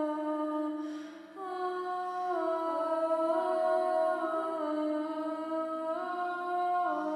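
Several voices humming long held notes together in a slow, drone-like chord that shifts pitch in small steps, with a short break about a second in.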